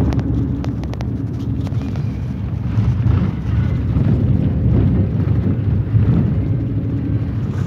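Road and wind noise from a moving vehicle: a steady low rumble.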